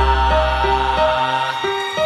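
Meditation music between chanted lines of the mantra: a melody of steady notes changing about three times a second over a deep bass drone, which drops out a little past halfway.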